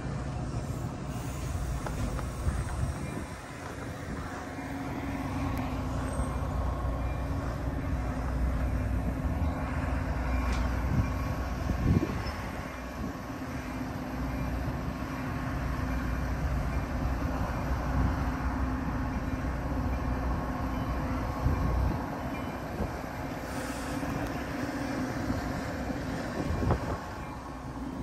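Metra commuter train of bilevel coaches pulling in and standing at the platform: a steady low rumble with a few short knocks.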